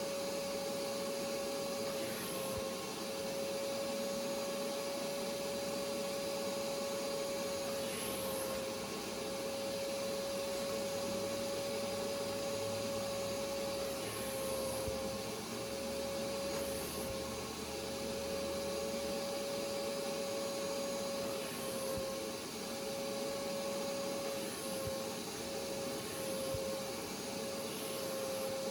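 Hoover carpet cleaning machine's suction motor running steadily, its pitch dipping briefly every few seconds.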